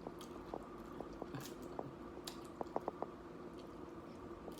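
Close-miked chewing of loaded nachos with cheese sauce: soft, wet mouth sounds with small clicks, and a quick cluster of clicks about three seconds in.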